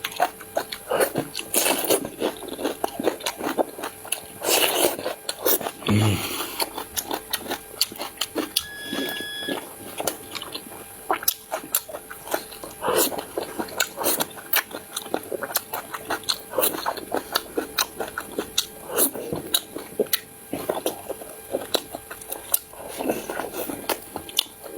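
A person eating close to the microphone: steady chewing and biting with many short wet mouth clicks and occasional crunches.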